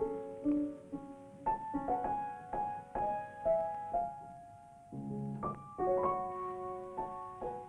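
Solo piano music: a slow line of single struck notes, each ringing and fading, with a fuller, lower chord about five seconds in.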